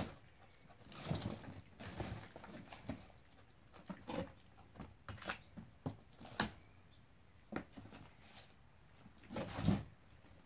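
A macaque rummaging inside a cardboard box of vegetables: irregular rustling, scraping and knocking of cardboard and produce, with louder scuffles about a second in and near the end.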